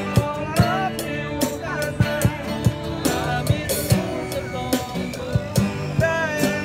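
A small street band playing live: drums and a cymbal keep a steady beat, about two and a half hits a second, under a wavering lead melody from a melodica, with guitar.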